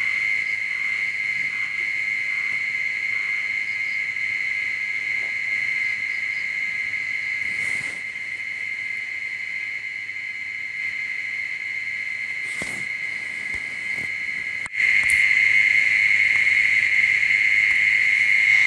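Steady, high-pitched insect trill that does not stop. It breaks off at a sudden cut about fifteen seconds in and goes on a little louder.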